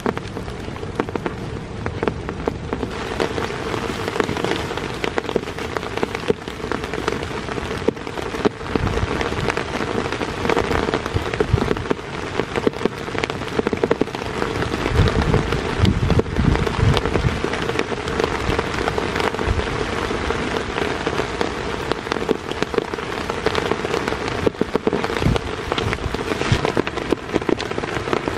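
Heavy rain falling steadily, with dense, sharp hits of individual drops on a near surface. A low rumble swells briefly about halfway through.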